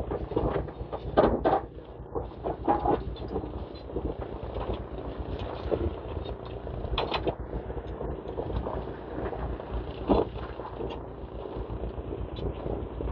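Demolition excavators' diesel engines running steadily while the machines crunch through the building's concrete, with irregular cracks and crashes of breaking and falling debris, several in the first three seconds and single ones about seven and ten seconds in.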